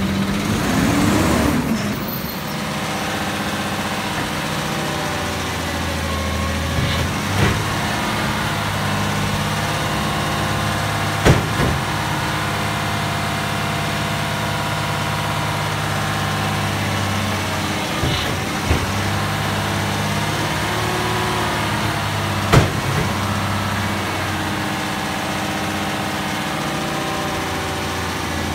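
Garbage truck diesel engine running steadily while the Labrie Automizer side-loader arm holds a cart up over the hopper, with a few sharp knocks spread through it.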